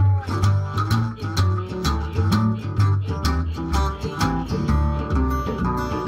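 Acoustic blues instrumental: a resonator guitar in open D tuning plays a plucked blues riff over repeating low notes from a washtub bass.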